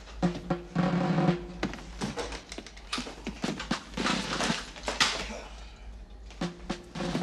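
Background music led by a drum kit, with snare and bass drum hits over a steady low bass.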